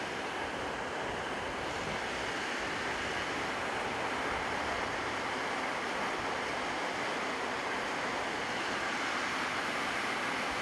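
Heavy rain pouring onto a corrugated metal roof: a steady, even rush of noise that holds at one level with no let-up.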